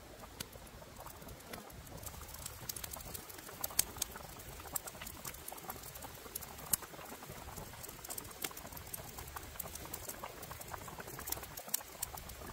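Whole chicken cooking in bubbling liquid in a wok over a wood fire: a steady bubbling with many irregular sharp pops and crackles.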